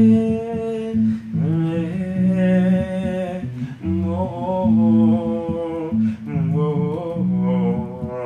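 A man's voice carrying a slow melody in long, wavering held notes, phrase after phrase, over a bass line played on an electric bass guitar.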